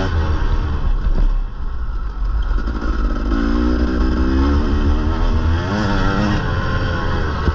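Motocross bike engine running hard under the rider, with a steady low rumble. Its pitch climbs through the middle and drops off about six seconds in.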